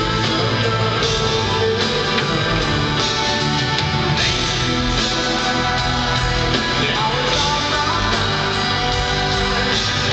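Live rock band playing a slow song: electric guitar, bass and drums, with the lead singer's vocals on top.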